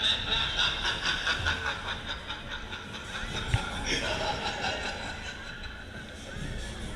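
Riders laughing on a moving fairground ride: a rapid run of chuckling over the ride's steady running noise, easing off about halfway through.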